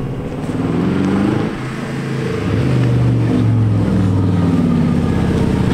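Audi RS7's twin-turbo V8 accelerating as the car drives up and passes close. The engine note climbs and drops several times and grows louder from about halfway.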